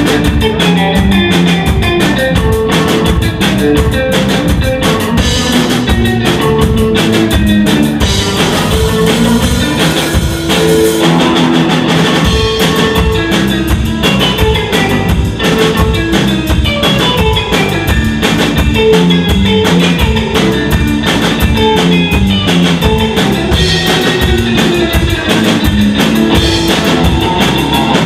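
Instrumental surf rock played live by a trio: electric guitar over bass guitar and a drum kit keeping a steady, driving beat.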